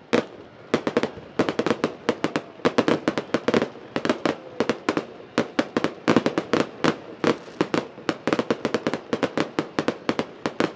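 Aerial fireworks display: a rapid, uneven string of sharp bangs and crackling pops from bursting shells, several a second.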